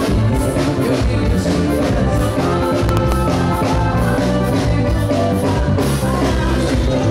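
Live forró band playing through the stage PA: accordion and drum kit with a steady beat, and a woman singing into a microphone.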